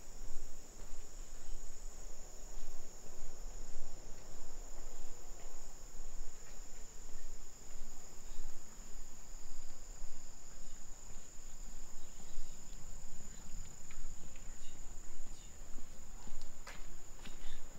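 Steady, high-pitched insect chorus with no break, over an uneven low rumble. Footsteps come in near the end.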